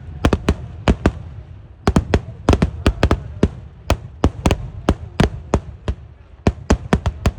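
Kerala temple-festival fireworks (eeduvedi): a rapid, irregular string of sharp explosive bangs, about four a second, each with a short echo.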